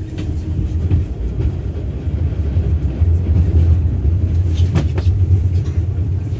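A 71-623-02 tram running along its tracks, heard from inside the passenger cabin: a steady low rumble from the running gear and motors. Two short sharp clicks sound close together about five seconds in.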